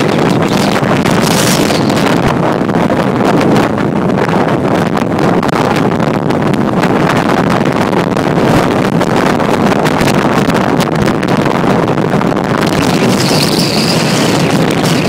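Storm-force wind buffeting the microphone: a loud, steady rushing that does not let up.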